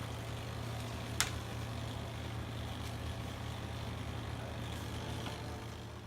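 An engine idling steadily on tree-removal equipment, with one sharp crack about a second in. It fades near the end.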